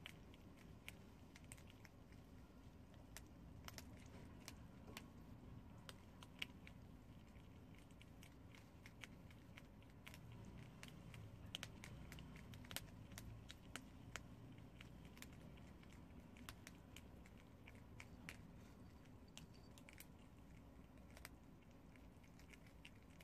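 Prairie dogs gnawing dry, uncooked instant ramen noodles: faint, irregular crunching with many quick sharp clicks as the brittle noodles snap between their teeth.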